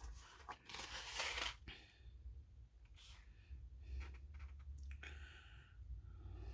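Faint rustling of paper and card being handled, loudest in a rustle lasting about a second near the start, then a few soft ticks.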